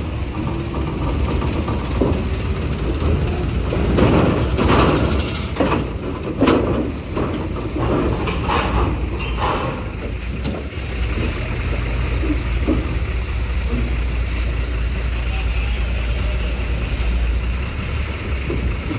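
Diesel cargo trucks driving slowly off a ferry across its steel loading ramp, a steady low engine rumble that grows heavier about halfway through.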